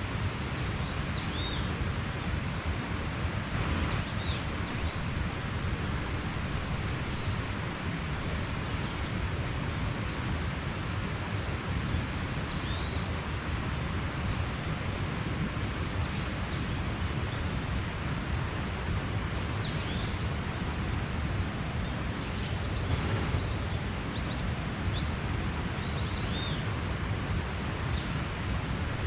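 Steady rush of a mountain stream, with a bird giving short high chirps every second or two.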